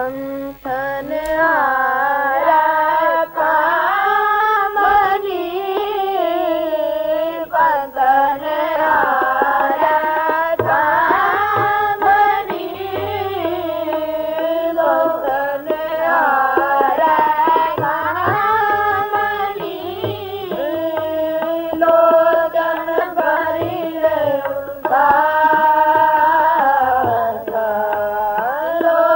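Kirtan: boys' voices singing a Sikh hymn over a sustained harmonium, with tabla strokes keeping the rhythm.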